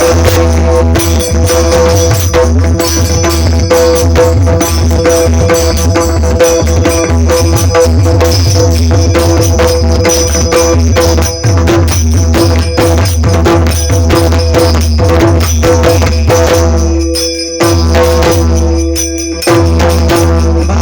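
Pakhawaj played in a fast run of dense strokes, the deep bass head booming under the sharp treble strokes, over steady held tones. The playing breaks off briefly twice near the end.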